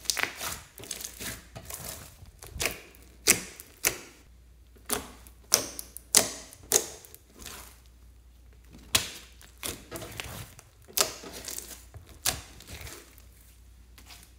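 Hands stretching, folding and pressing yellow slime with small beads mixed in, making a string of sharp, irregular sticky pops and clicks, about one or two a second.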